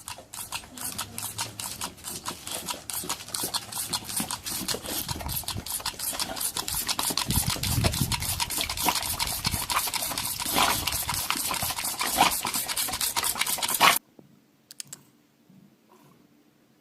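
Rapid, dense scratching and rubbing that stops suddenly about 14 seconds in, after which there are only a few faint ticks.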